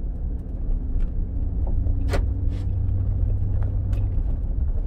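2003 GMC half-ton pickup heard from inside the cab as a steady low rumble of engine and road noise while it accelerates in first gear, with the 4L60E automatic upshifting to second near the end. A sharp click sounds about two seconds in.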